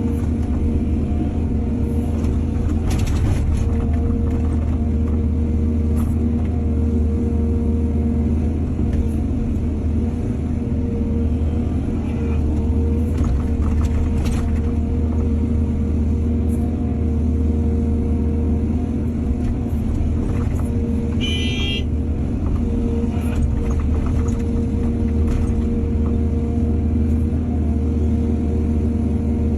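Excavator's heavy diesel engine running steadily under load, with a few scattered clanks and knocks, and one brief high-pitched squeak about two-thirds of the way through.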